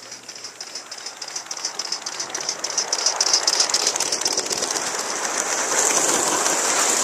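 Gauge 1 model steam locomotive and its coaches running past on garden track: a rapid, rhythmic clicking and rattling that grows louder as the train approaches and goes by.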